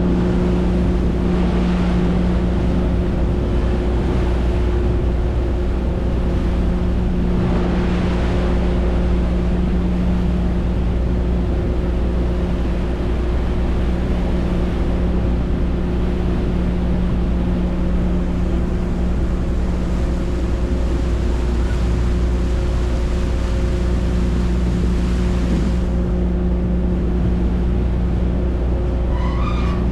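Ferry engine running steadily at cruising speed: a constant low drone with a steady hum, under a wash of water and wind noise.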